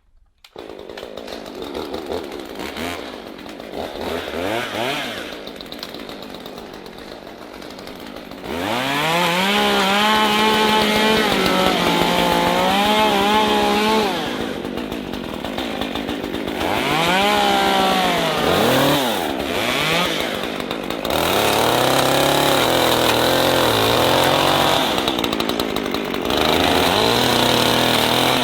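Two-stroke chainsaw at low speed with a few throttle blips, then revved to full throttle about a third of the way in and cutting small trees and poles, its pitch sagging under load. It drops back toward idle, blips, and runs at full throttle cutting again through the rest.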